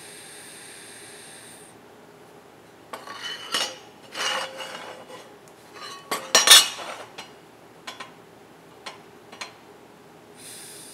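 A TIG welding arc hissing steadily, which cuts off about two seconds in. Then the steel bracket clanks and rattles against the steel welding table as it is turned and set in a new position, with a few light metal clicks. The arc hiss starts again near the end.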